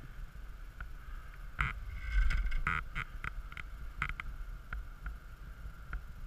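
Wind buffeting the camera's microphone, rumbling and gusting hardest about two seconds in, with a few sharp clicks and knocks scattered through.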